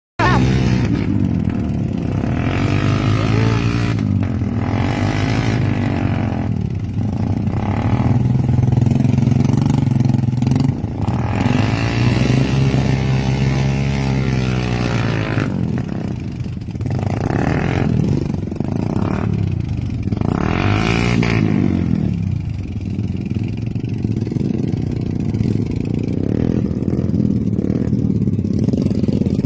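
Motorcycle engine revving up and down again and again, its pitch rising and falling every few seconds.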